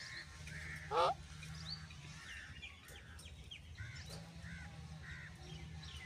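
A parakeet gives one loud, short call about a second in, followed by several faint chirps.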